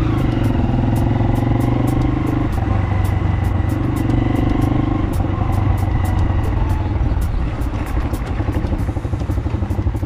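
Small motorcycle engine running while riding along the road, a steady low drone that eases off and turns choppier near the end as the bike slows.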